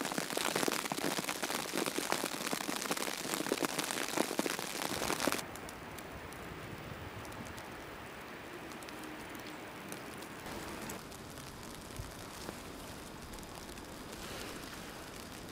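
Blizzard wind buffeting a camcorder's built-in microphone: a harsh, crackling rush for about five seconds, then it drops suddenly to a quieter, duller steady whoosh.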